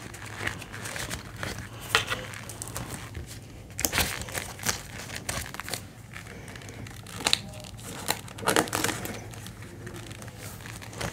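Clear plastic binder pouches and Australian polymer banknotes crinkling and rustling as they are handled, with scattered sharper crackles.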